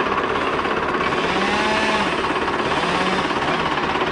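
Old Fendt tractor's diesel engine idling with a steady, even knock.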